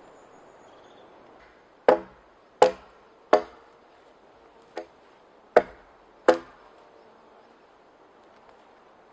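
Axe chopping wood: six sharp blows in a fairly even rhythm, the fourth lighter than the rest.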